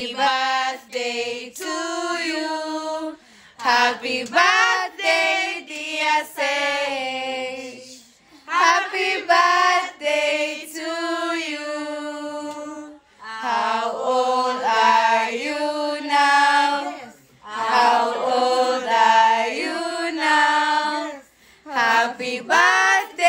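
A small group of voices singing together unaccompanied, in phrases a few seconds long with short breaks between them.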